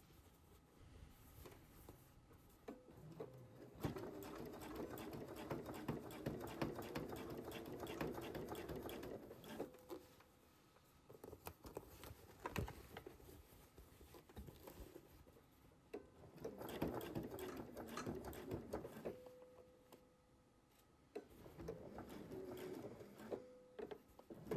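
Sewing machine stitching through denim, top-stitching a jeans fly in three short runs of rapid, even needle strokes, stopping between them.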